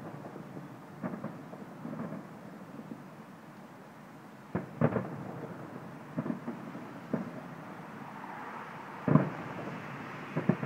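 Distant fireworks salute: shells bursting as a series of dull booms, about ten in all, some in quick pairs, the loudest about nine seconds in, over steady background noise.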